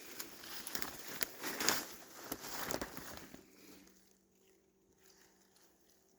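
Footsteps crunching and rustling through forest-floor debris and brush, which stop about three and a half seconds in.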